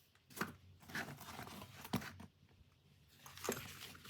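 Handling noise from a Stanley FatMax fabric tool bag being moved and turned: about four short rustles and knocks with quiet gaps between them.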